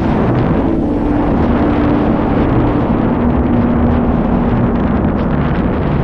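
Airflow in flight rushing over the camera's microphone: a loud, steady wind roar, heaviest in the low end.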